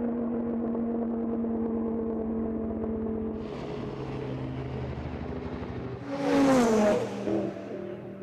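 Sports car engines running hard at high, steady revs. About six seconds in comes a loud rush with the engine note dropping in pitch.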